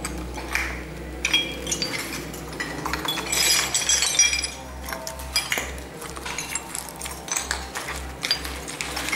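Footsteps over broken ceramic tile and debris, giving scattered clicks and glassy clinks. A dense run of jingling clinks comes about three to four and a half seconds in.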